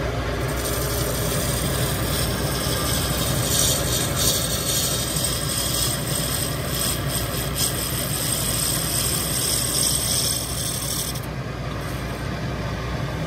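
A 1941 metal lathe running while a boring tool takes a cut inside a bushing, opening the bore by about 11 thousandths of an inch. The high scraping hiss of the cut starts about half a second in and stops near the end, leaving the lathe running on its own.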